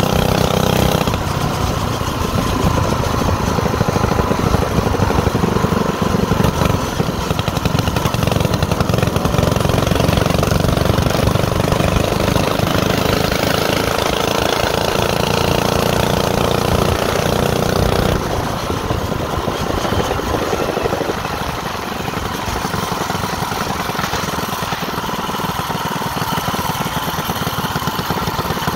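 Motorcycle engine running under way as it rides along the street. About two-thirds of the way through, the engine eases off and runs quieter.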